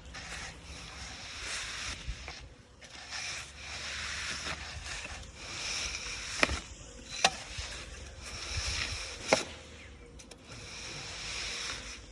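Repeated rasping, swishing strokes, each a second or two long, like a hand tool worked over wet concrete, with three sharp clacks in the middle.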